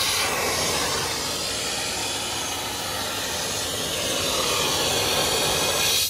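Steam and hot water hissing out of an electric steam boiler's open bottom blowdown valve in a steady, strong jet. This is the boiler's blowdown, flushing out rust and scale left by hard water.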